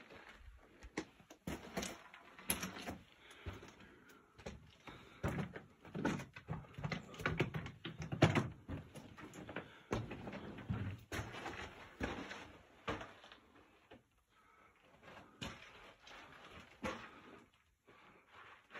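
Irregular scuffs, crunches and knocks of someone scrambling over loose rock and gravel in a mine tunnel. The sounds come thickest through the middle and thin out near the end.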